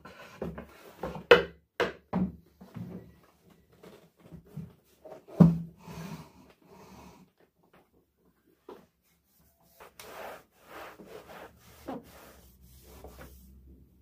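Household objects being handled indoors: a run of sharp wooden-sounding knocks and rubs, the loudest about five seconds in. After a short pause comes softer scraping and rustling with one more knock.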